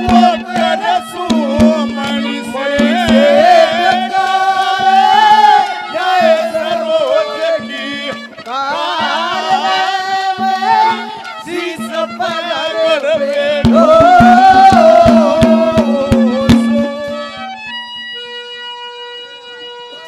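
A man singing a Haryanvi folk song (a rangkaat) loudly into a microphone over a steady drone and hand-drum strokes. Near the end the voice stops and only a held instrumental chord rings on.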